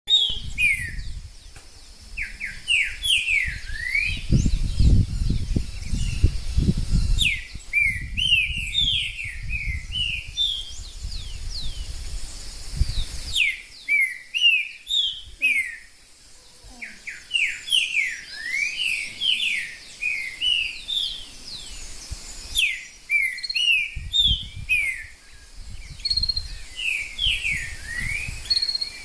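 A bird singing in repeated bouts of quick, sweeping whistled notes, each bout lasting a few seconds with short pauses between. A low rumble comes in twice, about four seconds in and again near the end.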